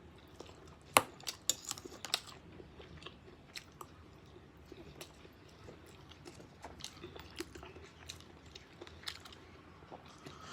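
Close-miked mouth sounds of someone eating spicy instant noodles: chewing with many small wet clicks and smacks, the sharpest click about a second in.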